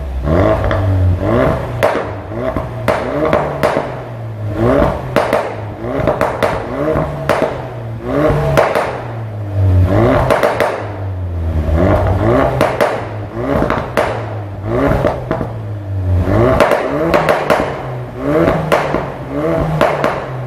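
Ford Focus RS Mk3's 2.3-litre turbocharged four-cylinder revved over and over, the engine note climbing and dropping back each time, with strings of sharp pops and crackles from the exhaust as the revs fall.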